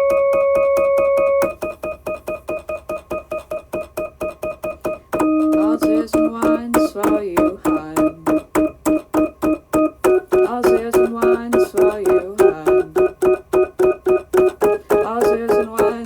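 Electronic keyboard music over a fast, steady ticking beat. A held electric-piano chord stops about a second and a half in, the beat runs on alone, and a melody comes in about five seconds in.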